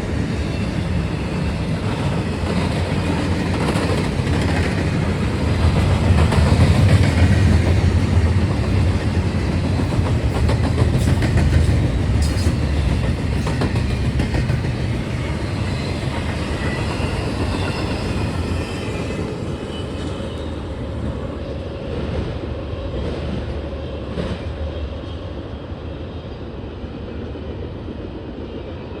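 Freight train cars, empty intermodal well cars and tank cars, rolling past with rumbling wheels and clickety-clack over the rail joints. The rumble is loudest several seconds in and fades gradually over the last third.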